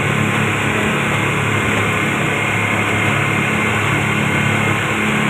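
Twin 250-horsepower outboard motors running steadily at cruising speed, driving a wooden speedboat, with the rush of the wake and spray behind the stern.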